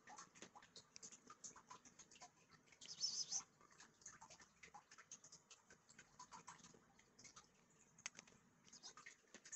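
Near silence with faint, irregular small clicks and ticks, and a brief soft rustle about three seconds in.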